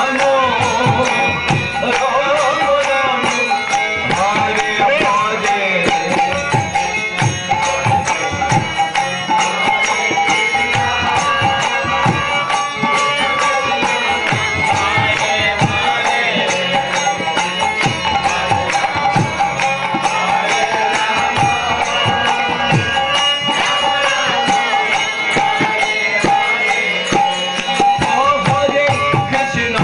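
Devotional kirtan music: chanting voices over held tones, with drum and percussion strokes keeping a steady beat.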